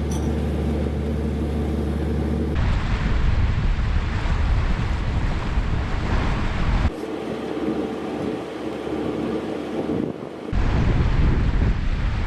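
A narrowboat engine hums steadily. About two and a half seconds in it gives way to loud rushing wind buffeting the microphone, which shifts abruptly twice more.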